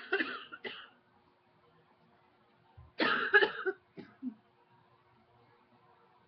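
A woman coughing in two short fits: a run of coughs right at the start, then a louder run of about three coughs some three seconds in, trailing off in a couple of small catches.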